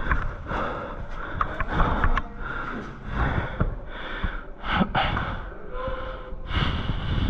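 A person breathing hard and audibly close to the microphone, in uneven noisy swells.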